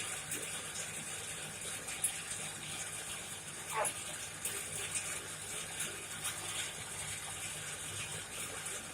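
Coal forge fire burning: a steady rushing noise with scattered crackles and pops, and one short falling squeak about four seconds in.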